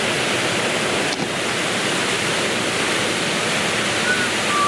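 Steady rush of a waterfall on a mountain creek, an even wash of falling water with no change in level.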